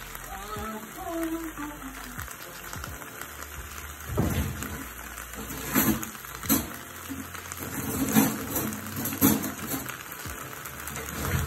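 Pork sizzling gently in a double-sided grill pan, with several short knocks from about four seconds in.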